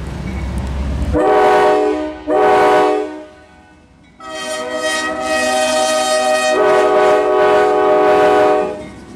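Air horn of a CSX ES40DC freight locomotive sounding for a grade crossing as it passes close by: a chord of several notes, first a blast of about a second, then a short one, then after a pause a long blast of about four and a half seconds. Before the horn starts there is a low rumble from the approaching train.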